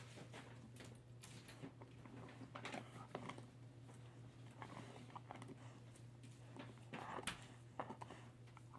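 Husky gnawing on a Purina Busy Chewnola chew treat: faint scattered crunches and clicks, a few sharper ones about three and seven seconds in, over a steady low hum.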